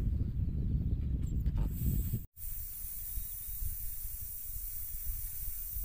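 Air hissing steadily out of a Jeep Grand Cherokee's tyre valve as the tyre is deflated to a lower pressure for soft sand. The hiss starts after a brief dropout about two seconds in; before that there is only a low rumble.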